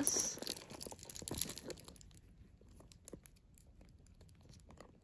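Metal rings and clasps of a handbag's chain strap being fitted on, with scattered clicks and rustling from handling the bag. The sounds are busiest in the first two seconds and grow sparser after.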